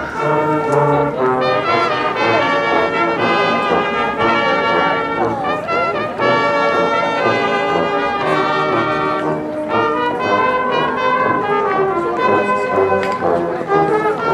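Marching band playing a tune, its brass carrying sustained notes that change every second or so.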